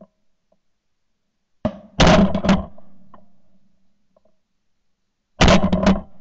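Shotgun blasts in two rapid volleys about three and a half seconds apart, each a quick run of several shots with a short fading echo.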